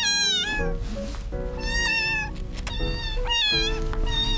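Young kittens meowing: three high, wavering cries about a second and a half apart. Soft background music plays underneath.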